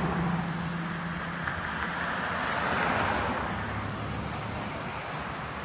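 A car passing on the road: its tyre and engine noise swells to a peak about halfway through, then fades away.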